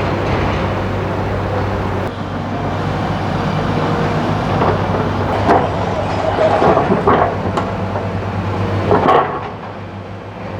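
Heavy diesel engine of a hydraulic excavator running steadily, with scattered metallic clanks and scrapes from the machine working.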